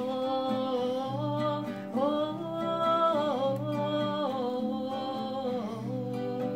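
A woman singing long, drawn-out notes to a strummed acoustic guitar. Her melody steps up about two seconds in and slides back down twice.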